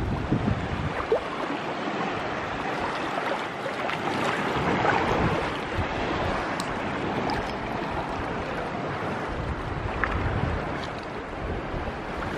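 Sea water washing and surging at the shore, with wind buffeting the microphone in low rumbling gusts.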